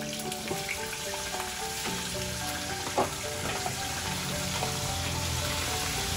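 Battered food deep-frying in hot oil in a wok, a steady crackling sizzle. A single sharp knock comes about three seconds in.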